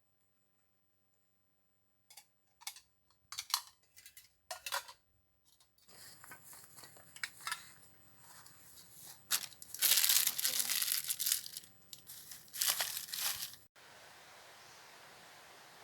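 Crinkling and tearing of something like plastic or paper being handled, starting as scattered crackles and growing into denser crinkling that is loudest about ten seconds in and again near thirteen seconds. It cuts off abruptly to a steady, even hiss.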